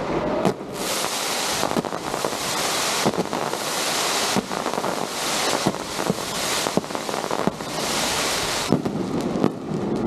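Fireworks going off: repeated surges of hissing, each about a second long with short gaps between them, with scattered sharp cracks.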